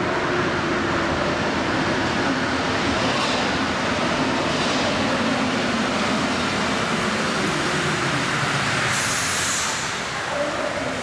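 MP59 rubber-tyred Paris Métro train pulling into the platform and slowing to a stop. Its running noise carries a low hum that falls in pitch as it slows, and a short high hiss comes about nine seconds in.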